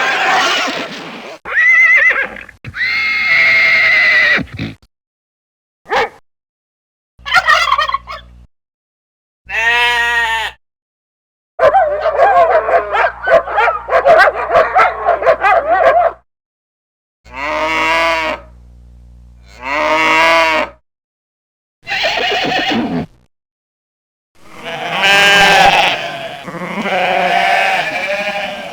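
A run of separate farm-animal call sound effects, about ten short clips with brief silences between them. They include pitched calls like bleating and fowl calls, and one longer, fast-wavering call in the middle.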